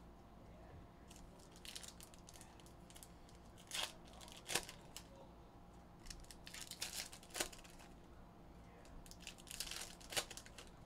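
Foil trading-card pack wrappers being crinkled and torn open by hand, in short crackling bursts a few times, the sharpest around 4.5 s and 10 s in.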